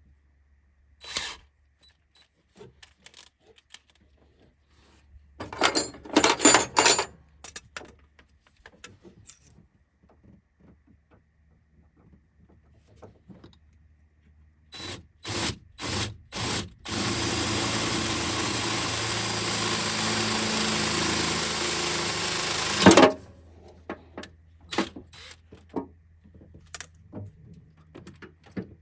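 A power drill blipped four times, then run steadily for about six seconds, ending in a sharp clunk, with clicks and rattles of hand tools and parts around it.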